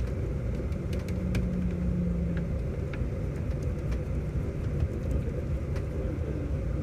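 A steady low mechanical rumble with scattered light clicks and taps, and a brief low hum from about a second in.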